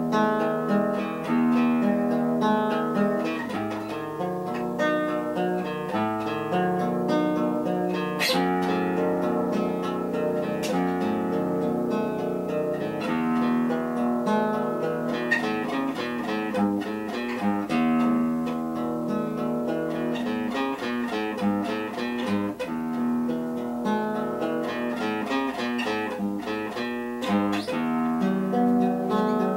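Acoustic guitar playing an instrumental piece: a continuous run of plucked notes over bass notes that change every few seconds.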